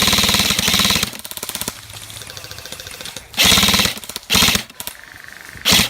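Airsoft guns firing full-auto: a loud burst of rapid shots lasting about a second, lighter rapid pops after it, then three shorter loud bursts later.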